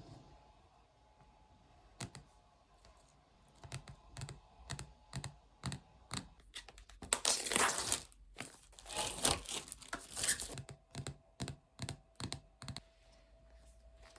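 Packaging being handled and opened: scattered light clicks and taps, with paper or plastic wrapping torn and crinkled in two longer stretches about seven and nine seconds in.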